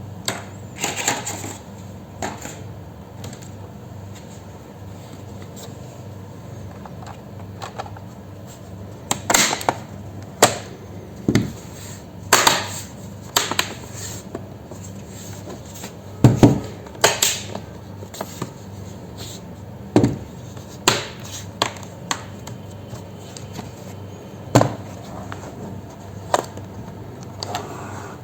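Irregular sharp clicks and knocks of laptop parts and tools being handled during disassembly, some in quick pairs, over a steady low hum.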